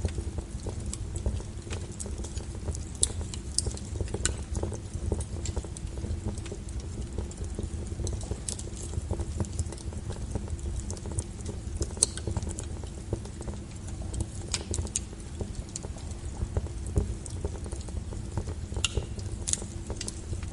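Wood fire burning with a steady low rumble and irregular sharp crackles and pops from the burning logs.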